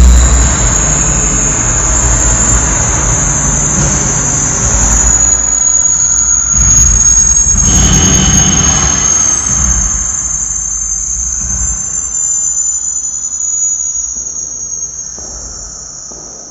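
Electronic noise sound art: a loud, dense wash of noise over a deep rumble, with a steady high whistle running on top. The rumble drops away in the second half and the whole sound fades out toward the end.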